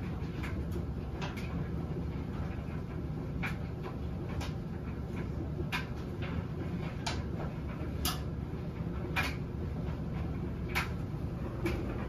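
Front-loading washing machine running a wash cycle: a steady low hum with irregular light knocks, roughly one a second, from the load tumbling in the drum.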